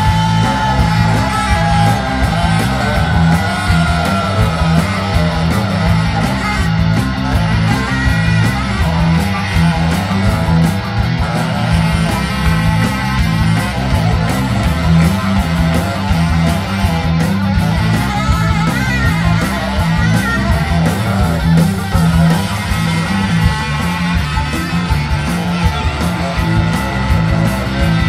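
Ska-punk band playing an instrumental passage live, with no vocals: electric guitar and bass over a steady repeating bass line, with drums.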